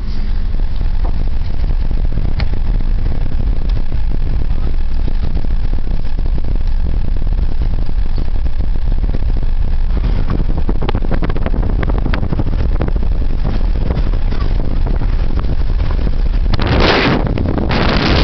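Steady low rumble of a vehicle driving on a rough dirt road, heard from inside the cab, with frequent small clicks and rattles that grow thicker from about halfway through. Near the end, wind blows hard across the microphone in two gusts.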